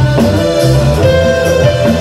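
Live reggae band playing an instrumental passage with no vocals: a heavy bass line under electric guitar.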